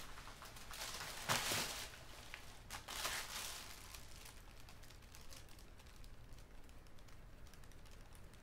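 Quiet room with soft rustling and small clicks. The two loudest rustles come about a second and a half in and again about three seconds in.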